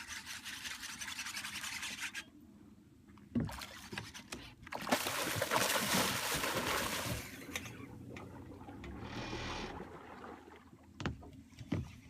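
Water splashing in several bursts beside a small fishing boat, the loudest a few seconds in, with a few sharp knocks near the end.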